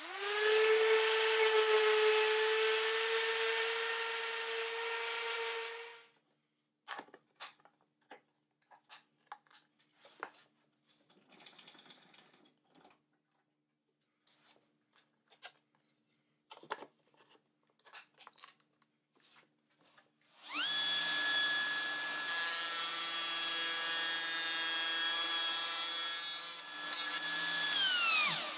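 A DeWalt random orbit sander runs on an oak picture frame for about six seconds with a steady whine, then stops. Scattered light knocks and clicks follow. About two-thirds of the way in, a table saw starts and runs steadily with a spline jig holding the frame over the blade, and near the end it is switched off and its pitch drops as the blade spins down.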